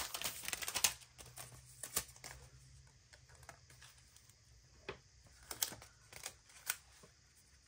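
Light clicks, taps and faint rustles of stationery being handled on a desk: sticker sheets, paper and small tools picked up and set down. There is a quick flurry in the first second, then scattered single clicks.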